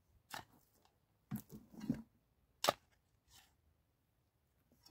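Knife blade scraping and chopping into dry, stony soil: a few short, separate scrapes and knocks, the sharpest a little before three seconds in.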